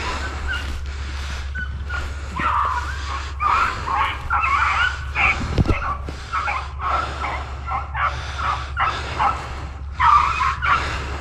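Pack of beagles baying and yipping in a quick run of cries from about two seconds in: hounds giving voice while running a rabbit. Under it, footsteps swish through dry grass and a low steady rumble.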